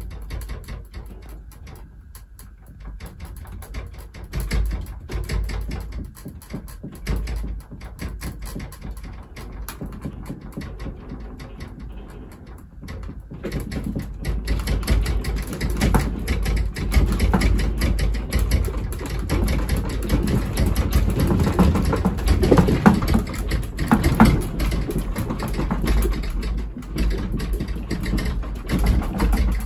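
A room shaking in an earthquake: a dense, continuous rattling and clicking of the building and furnishings over a low rumble. About halfway through the shaking grows stronger and the rattling louder.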